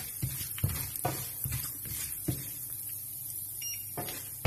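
Spatula stirring peanuts, dal and mustard seeds as they fry in oil in a nonstick pan: irregular soft taps and scrapes over a faint sizzle.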